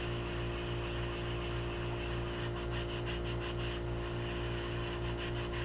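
A wet scrubbing pad rubbed in repeated strokes over soft-fired porcelain greenware, the seam lines of a doll head: a faint scratchy rubbing. A steady low hum runs underneath.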